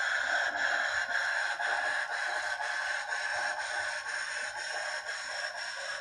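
Steam locomotive sound from a Soundtraxx Tsunami2 decoder, played through the HO model's small speaker: a steady hiss with chuffs at a regular beat of about three a second. There is almost no bass.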